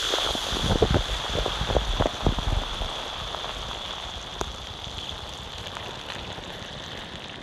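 Street ambience: a steady hiss, with the low rumble of passing traffic and a few short knocks in the first three seconds, then settling to a steadier background.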